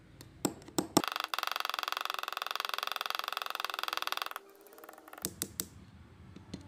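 A small hammer tapping a pin punch to drive out the hinge pin of a Dunhill Rollagas lighter: a few separate metallic taps, then a fast run of light taps for about three seconds, then a few more single taps.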